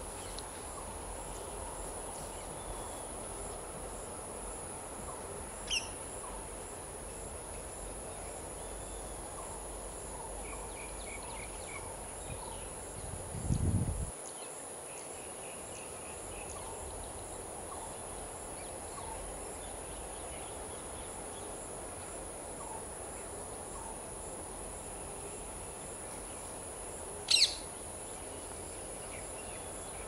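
A steady high insect drone, with faint bird chirps now and then. A low thump comes just before halfway, and a single short, sharp bird call near the end.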